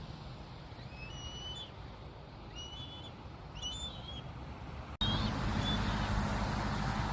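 Bald eagle calling in four short phrases of thin, high, stepped piping notes, over a steady low background rumble that jumps louder at an abrupt cut about five seconds in.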